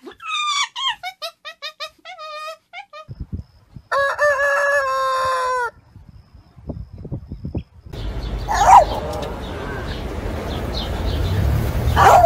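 A run of short calls falling in pitch, then a rooster crowing once for about two seconds. After that comes a noisy stretch with a couple of short squeals.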